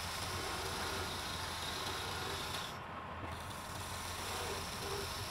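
Hand-held turning chisel cutting a spinning wood blank on a lathe: a steady hiss of shavings peeling off, over the low hum of the lathe motor. The cut eases off briefly about three seconds in, then resumes.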